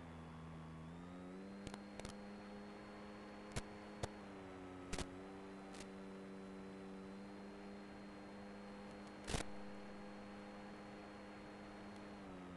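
Electric brushless motor and propeller of a small FPV model plane, a steady hum heard over the analogue 5.8 GHz video link's audio. The pitch steps up about a second in, dips briefly around five seconds and drops near the end as the throttle changes. Several sharp clicks cut through it, the loudest a little after nine seconds.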